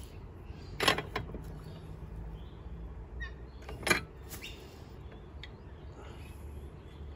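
Two sharp metallic clinks about three seconds apart, the first followed closely by a smaller one: a spark plug socket and its bar knocking against a two-stroke mower engine as the spark plug is screwed back in.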